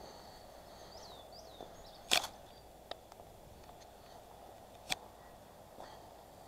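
Quiet rural outdoor ambience with faint, high bird chirps in the first couple of seconds and a few sharp clicks, the loudest about two seconds in and another near five seconds.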